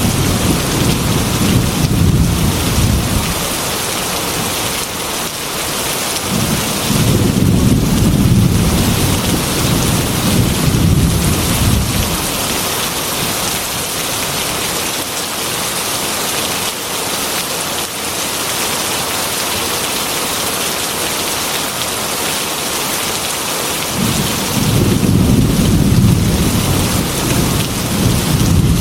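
Heavy rain pouring steadily on a metal roof, with deep rolls of thunder rumbling three times: at the start, from about six seconds in for several seconds, and again near the end.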